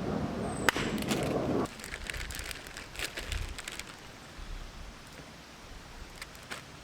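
Rumbling storm noise of heavy rain and thunder that cuts off abruptly after about a second and a half. Scattered light ticks and crackles follow over a faint hiss.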